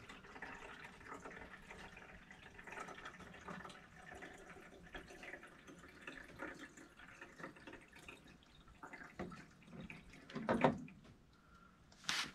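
Water poured from a jug, trickling and dripping into a condensate pump's reservoir to test the replacement pump. A knock comes about ten seconds in and a sharp click just before the end.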